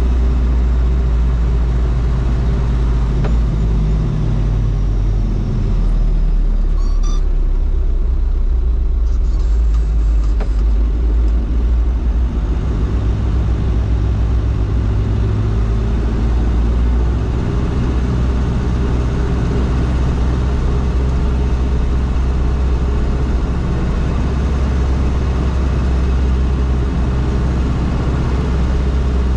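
Toyota Land Cruiser BJ73 with a 13B-T turbo-diesel four-cylinder, running steadily while driving under way, a loud low drone with road noise. The engine note rises and falls a few times with the throttle.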